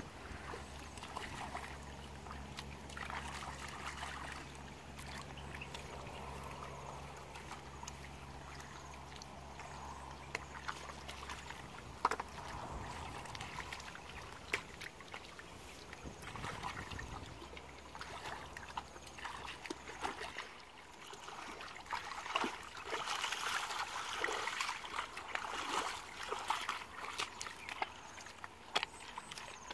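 Hands sloshing and splashing in shallow muddy water while groping in the mud for fish, with scattered small splashes and clicks that grow busier about two-thirds of the way through. A steady low hum lies underneath and stops about two-thirds of the way through.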